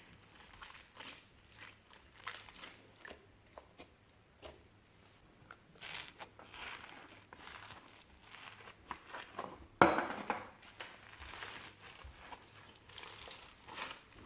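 Slime being kneaded, stretched and squished by hand, giving irregular sticky crackles and small pops. One much louder sharp pop or snap stands out a little under ten seconds in.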